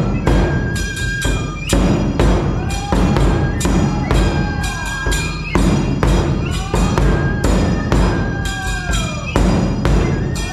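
Neputa festival music: taiko drums beating a steady rhythm, with ringing metal hand cymbals over the strikes.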